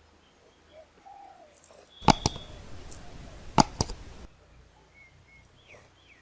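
Faint bird calls outdoors, broken about two seconds in by roughly two seconds of loud hiss that starts and stops abruptly, with four sharp clicks in it.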